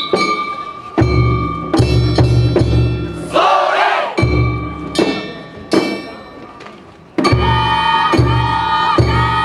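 Japanese festival boat-float music: heavy drum beats and ringing metal strikes. About three and a half seconds in, a group of bearers gives a short shout in unison.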